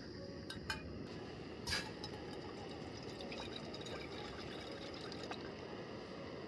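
Steady rushing noise like running water, with a few sharp clicks in the first two seconds.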